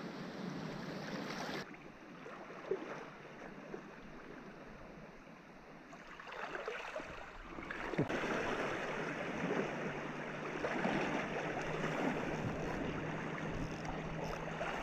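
Small waves lapping and washing against a rocky sea shore, with a few faint knocks.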